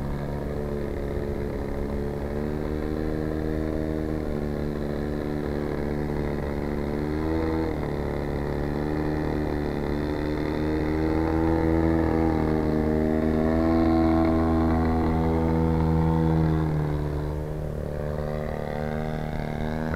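Engine and propeller of a 40% scale Pilot RC Sbach aerobatic model plane in flight, a steady drone whose pitch shifts up and down with the throttle. It dips briefly about a third of the way in, then climbs and grows louder past the middle before easing off near the end.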